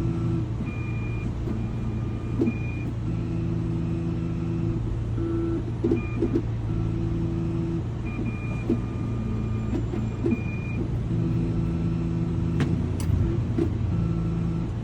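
Vehicle engine idling with a steady low hum. Over it, held electronic tones at several pitches switch on and off in a repeating pattern about every two seconds, with a few light clicks.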